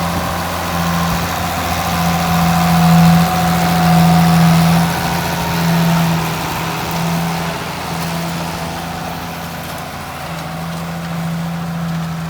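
Ford TW-15 tractor's diesel engine running steadily while pulling a plough. Its drone swells louder a couple of seconds in and eases off again in the second half.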